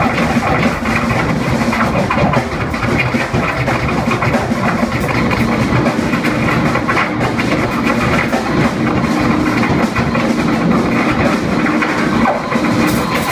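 Loud, dense free-improvised music from a trio of electric guitar, turntables and drum kit, the drums played busily under a noisy wash of guitar and turntable sound.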